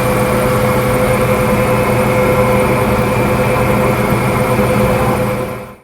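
Combine harvester running with its harvesting machinery engaged: a steady mechanical drone with a constant high whine, fading out near the end.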